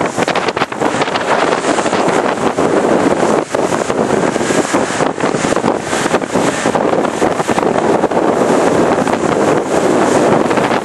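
Heavy wind buffeting the microphone on a boat running at speed, with the motor and the rush of choppy water under the hull mixed into one loud, steady roar.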